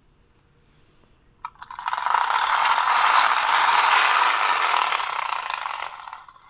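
Plastic toy tractor's friction motor whirring with a fast gear rattle as it is pushed along the floor and rolls off. It starts with a click about a second and a half in, runs about four seconds and fades near the end.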